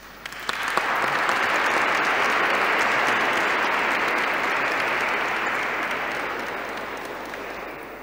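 Audience applauding in a church hall, building up about half a second in, holding steady, then slowly dying away toward the end.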